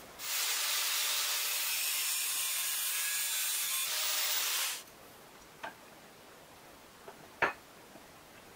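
Angle grinder's abrasive disc grinding the edge of a steel strip clamped in a bench vise: a steady harsh hiss for about four and a half seconds that cuts off suddenly. A few light knocks follow, the sharpest about seven seconds in.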